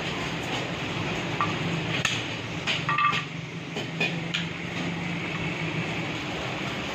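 Steady rumble of a busy meat shop and cookhouse open to the street, with a handful of sharp metallic clinks of steel bowls and knife from about two seconds in. A few of the clinks ring briefly.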